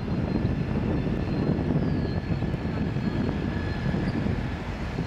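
Reading & Northern diesel-electric locomotive running, its engine a steady low rumble as it moves slowly along the track.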